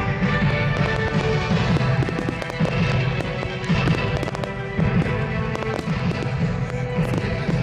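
Fireworks going off, with many quick bangs and crackles, over music playing.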